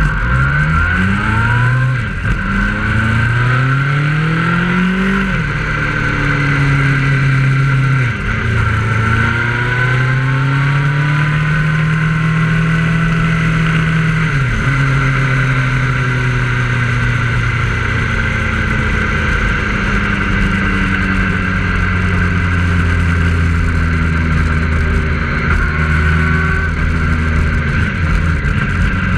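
The filming vehicle's engine pulls away from a standstill and accelerates. Its pitch climbs and drops back at gear changes about 2, 5, 8 and 15 seconds in, then it runs steadily at cruising speed over constant wind and road noise.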